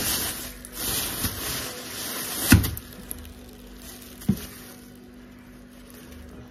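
Rustling handling noise, then a sharp knock about two and a half seconds in and a smaller one a couple of seconds later, like things being handled and set down on a table; after that only a faint steady low hum.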